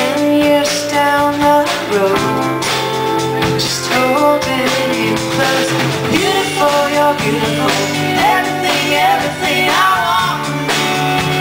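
Live folk-rock band playing a song: a woman singing over strummed acoustic guitar, bass and drums.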